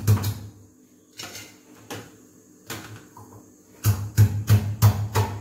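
A small stone pestle pounding garlic cloves to crush them: quick, dull knocks about three to four a second. A short run comes at the start and another from about four seconds in, with a few scattered knocks between.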